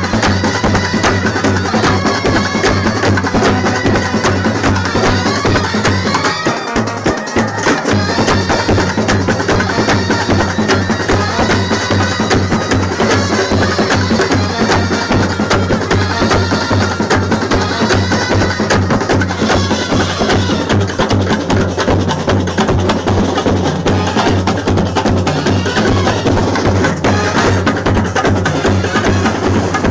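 Instrumental passage of a Malayalam Onam song, driven by fast, steady percussion.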